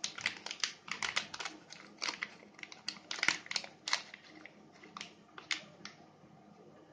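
Shiny silvery plastic bag crinkling as it is unfolded and pulled off by hand: irregular sharp crackles, thick for the first few seconds, then sparser as the bag comes away.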